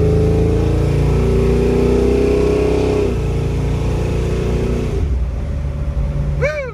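SS496 Camaro's 496-cubic-inch big-block Chevrolet V8 pulling under acceleration, heard from inside the cabin. Its pitch climbs steadily, drops about three seconds in, holds, then eases off to a lower, quieter cruise near the end.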